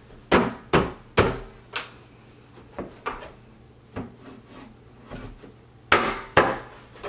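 Wooden parts of an IKEA Gulliver changing table knocking against each other as the partly assembled frame is handled and shifted: four sharp knocks close together at the start, a few softer ones, then two loud knocks near the end.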